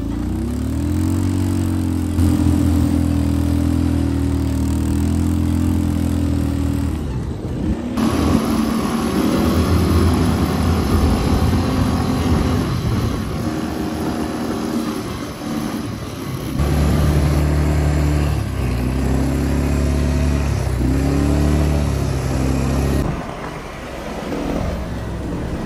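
Quad bike engines running and revving, the engine pitch rising and falling, in several short clips that change abruptly about a third and two thirds of the way through.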